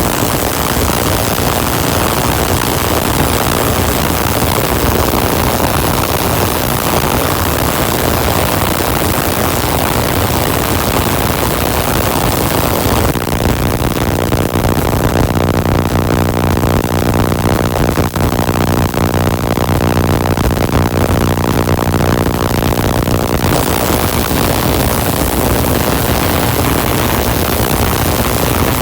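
Spark-gap Tesla coil running, with air blown through its spark gap: a loud, harsh rushing buzz. From about 13 to 23 seconds in, the hiss drops and a steadier low buzz with a clear pitch takes over.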